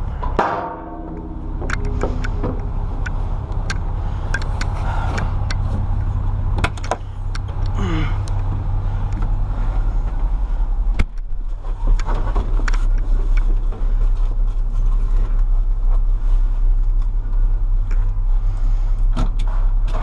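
Heavy diesel engine idling steadily, with scattered clicks and knocks from climbing into a backhoe cab. A sharp knock comes about eleven seconds in, after which the engine hum changes.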